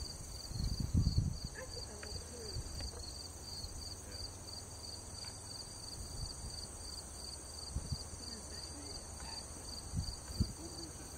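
Crickets chirping in a steady, even rhythm over a constant high insect hiss. Low gusts of wind buffet the microphone now and then, most strongly about a second in.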